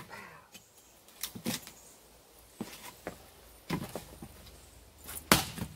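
Wood knocks from splitting oak firewood with a double bit axe: several light clunks of wood and axe, then one sharp, loud knock about five seconds in.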